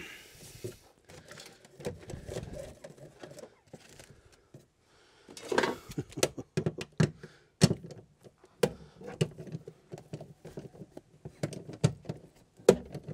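Handling noise as loose wiring and trim are pulled about in a van's cab floor: a scatter of sharp clicks and knocks with some rustling, busier from about halfway through.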